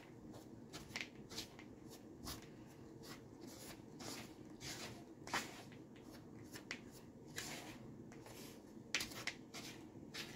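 Plastic spatula stirring muffin mix with chocolate chips in a plastic mixing bowl: faint, irregular scrapes and rustles, several a second.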